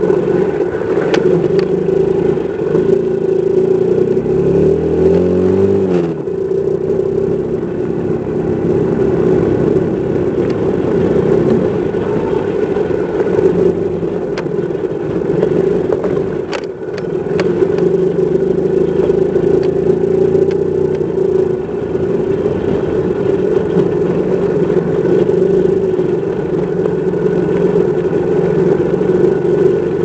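Vehicle engine running steadily at low speed over a rough gravel road. Its pitch rises for a couple of seconds about four seconds in, then drops back. A few sharp clicks of stones and gravel sound against the vehicle.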